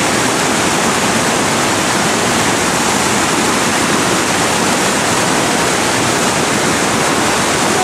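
Large river rapid rushing steadily: the loud, even noise of whitewater breaking in standing waves.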